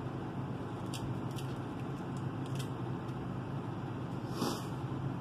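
Eating sounds: a few faint clicks as a seafood shell is picked apart by hand, then a short slurp about four seconds in as a piece goes into the mouth, over a steady low hum.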